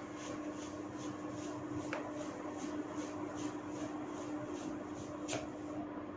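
Hands working through hair on the scalp in a steady rhythm, soft swishes about two or three a second, over a steady low hum. A sharp crack comes about five seconds in, with fainter clicks earlier.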